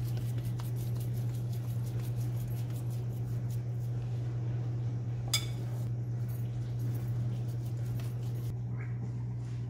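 Soft handling noises as a chicken shami kabab mixture is pressed and shaped into patties by hand, over a steady low hum. One sharp click sounds about five seconds in.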